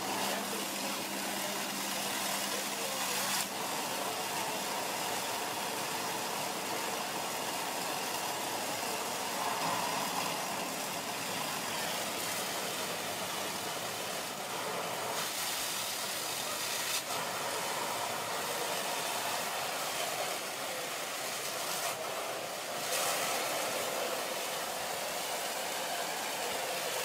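Steady hissing rush of fire hose streams spraying water onto rubble, with fire apparatus engines running underneath.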